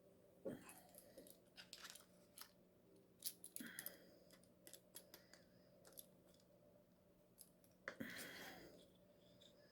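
Faint clicks and scrapes of small metal parts and hand tools being handled while fitting a motor to an RC truck, in a few short clusters, over a faint steady hum.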